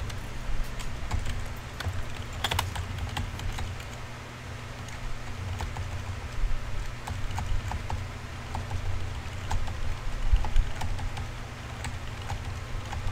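Typing on a computer keyboard: irregular, quick key clicks, over a steady low hum.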